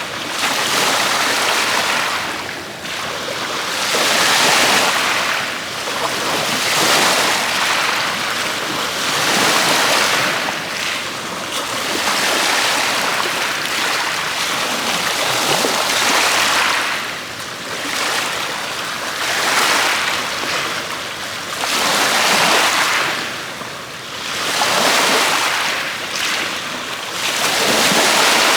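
Ocean surf washing onto a beach, each wave swelling and falling away about every two and a half to three seconds.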